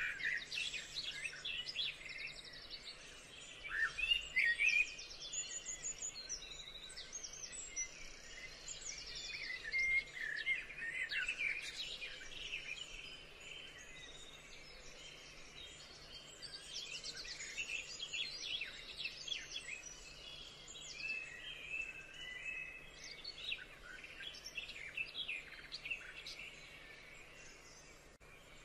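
Several birds chirping and trilling, with many short calls overlapping one another.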